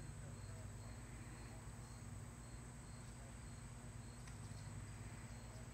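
Faint, evenly spaced chirping of an insect, about three chirps a second, over a low steady hum.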